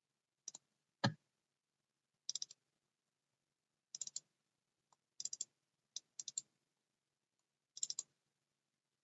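Faint clicking from a computer mouse and keyboard, in quick groups of two to four clicks every second or so, with one louder, duller knock about a second in.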